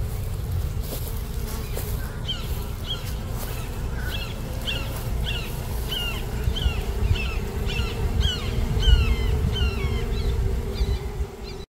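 Honeybees buzzing in a steady hum around an open hive over a low rumble. From about two seconds in, a bird repeats a short falling chirp, about one and a half times a second.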